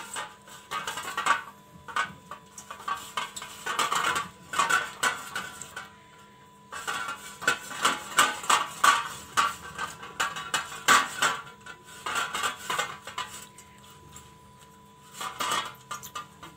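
A utensil clinking and scraping against a cake pan as oil is spread over the inside of the pan. The clinks come in irregular runs with short pauses between them.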